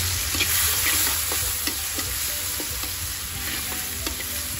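Pounded chili, garlic and coriander-root paste sizzling in hot lard in a wok, stirred with a metal spatula that scrapes and clicks against the pan. This is the paste being fried until cooked, before the meat goes in.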